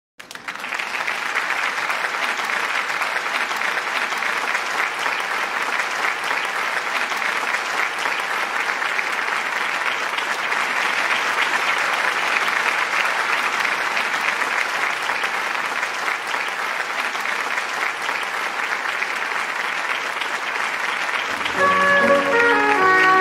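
Audience applauding steadily, fading in at the start. Near the end the band comes in with pitched notes from low bass to higher lines, and the level rises.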